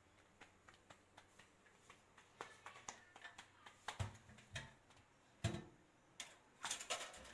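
Faint scattered clicks and taps of hands handling rolled roti dough and kitchenware at a gas stove, with two dull knocks about four and five and a half seconds in.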